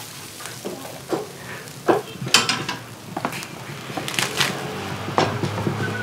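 Seafood sizzling in wire grill baskets over a hot coconut-husk fire, with irregular sharp clinks and clatters as the grill and baskets are handled.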